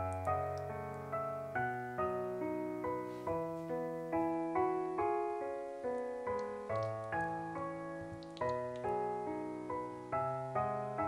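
Background piano music, single notes and chords struck at an even pace, each fading before the next.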